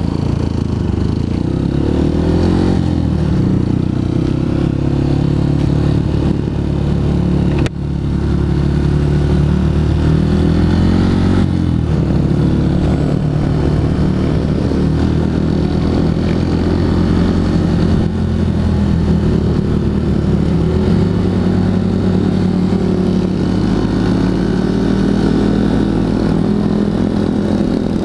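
Honda CRF150L's single-cylinder four-stroke engine running under way, its note rising and falling with the throttle and dipping briefly about eight seconds in.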